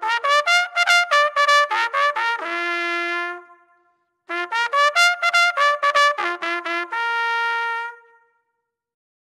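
Intro music played on a trumpet: two short phrases of quick notes, each ending on a long held note that fades out.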